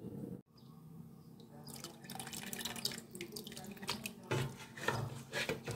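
Pot of goat bones and meat boiling in water, bubbling and splashing with a dense run of irregular pops. The sound drops out briefly about half a second in, and the bubbling and sloshing pick up from under two seconds in.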